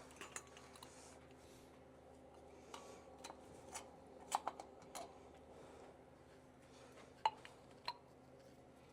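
Scattered light clicks and taps of small metal parts and hand tools being handled, about nine in all, the sharpest a close pair around four and a half seconds in and another just past seven seconds, over a faint steady hum.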